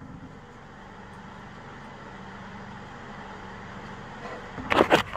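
Steady background noise with a faint low hum, then a short clatter of sharp knocks near the end.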